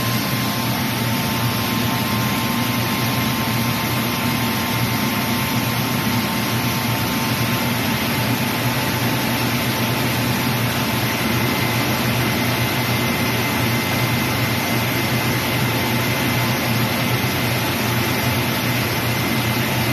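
Compact Korean-made rice milling machine running steadily while milling rice: a constant mechanical whir with a strong low hum and a faint high steady whine.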